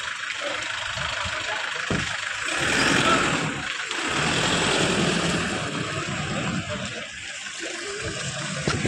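Toyota Fortuner SUV's 3.0-litre four-cylinder diesel engine running as the vehicle moves off, swelling louder twice in the middle.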